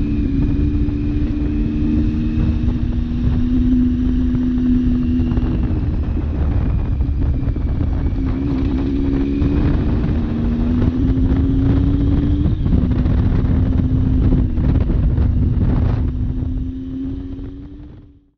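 Triumph Tiger 800XC's three-cylinder engine running under way, heard from the bike, over a steady rush of wind on the microphone. The engine note rises and dips with the throttle, and the sound fades out near the end.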